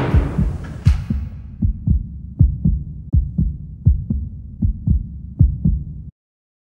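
Heartbeat sound effect: low double thumps, lub-dub, at a steady pace of about 80 beats a minute, cutting off abruptly about six seconds in. A hissing noise fades away in the first second or so.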